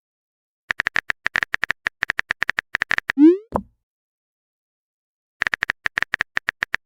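Smartphone keyboard typing sound effect: a quick run of short clicks lasting about two seconds. It is followed by a short rising swoosh of a message being sent, and a second run of typing clicks starts near the end.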